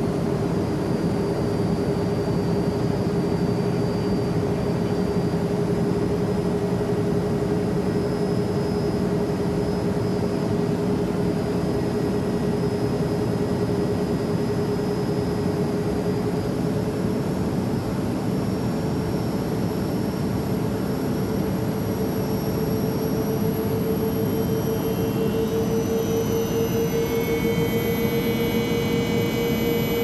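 Learjet cabin in flight: a steady rushing jet-engine drone with a whining tone that rises slowly in pitch. Near the end, several higher whines come in.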